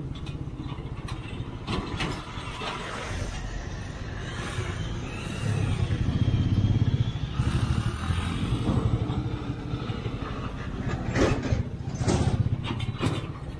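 Motorcycle engine running while riding in traffic, growing louder for a couple of seconds around the middle. A few sharp knocks near the end.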